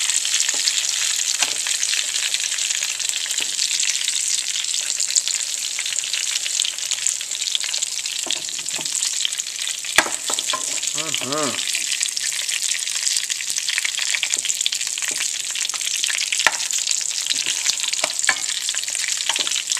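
Anaheim peppers frying in olive oil with garlic in a pan, giving a steady sizzle. Occasional sharp clicks come from a metal spoon against the pan, the clearest about ten seconds in.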